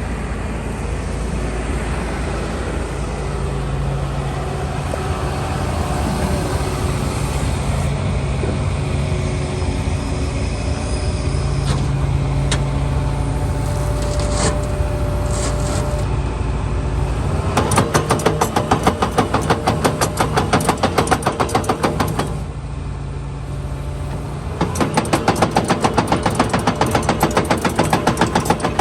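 Hitachi ZX225USR-6 crawler excavator's diesel engine running under hydraulic load, with a thin whine partway through. Twice a fast, even clatter of the steel tracks starts and runs for about four to five seconds as a track is driven.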